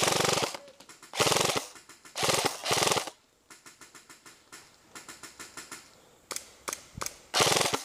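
Airsoft M4 rifle firing short full-auto bursts, five or so, with a stretch of fainter rapid ticking in the middle.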